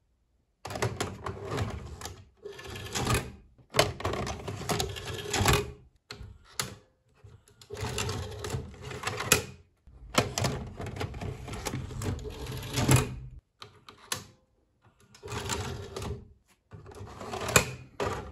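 Plastic VHS cassette being handled against a video cassette player's casing: clicking and clattering in bursts of a second or two, with short pauses between.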